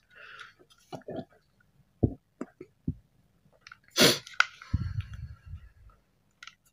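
Scattered metal clicks and knocks from a KJ Works KP02 Sig Sauer P229 gas blowback airsoft pistol being handled, with a short loud burst of noise about four seconds in, followed by a low rumble for about a second.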